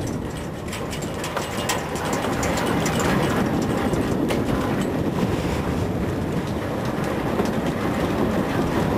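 Fishing boat's engine and hydraulic line hauler running, a steady rumble with scattered sharp clicks as the hauler draws in a hooked mackerel line.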